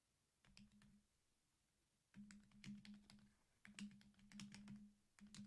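Faint typing on a computer keyboard: irregular clicks in several short runs, with a low hum that comes and goes with them.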